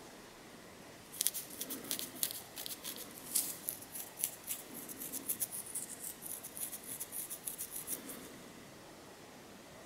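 Long fingernails scratching a flaky, dandruff-covered scalp through the hair: a quick run of short, dry, crisp scratches that starts about a second in and dies away a couple of seconds before the end.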